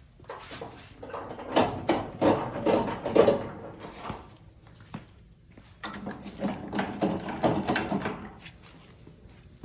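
Bleacher stabilizer jack being cranked by hand: the metal crank and screw run in two spells of quick, rough clattering, the second starting about six seconds in.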